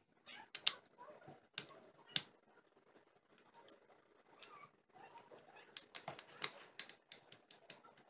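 Light, sharp clicks and taps of small screws being fitted and tightened into a laptop's hard-drive bay, a few scattered at first, then a quicker run of clicks in the last two seconds.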